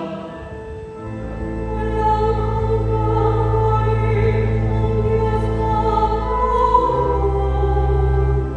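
Choral music: voices singing long held notes over a sustained low accompaniment. It swells in over the first second, and the bass moves to a new chord about seven seconds in.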